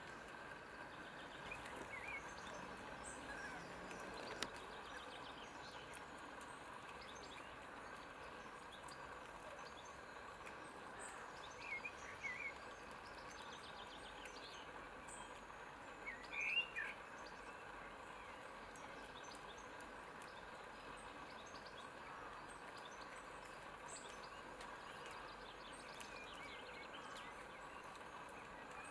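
Quiet outdoor ambience: a steady faint hiss, with a few brief high chirps about two, twelve and sixteen seconds in, the last the loudest.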